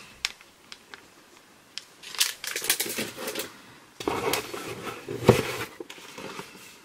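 Plastic packaging rustling and crinkling while items are handled, with a few light clicks and one sharp knock about five seconds in.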